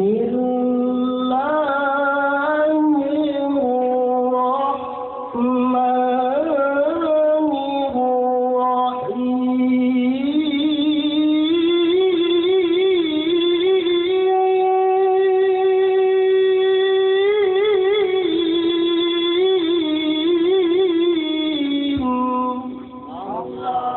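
A man reciting the Quran in the melodic tilawah style, holding long ornamented vowels with wavering turns. About ten seconds in he climbs to a higher held note, then drops back to the lower pitch near the end.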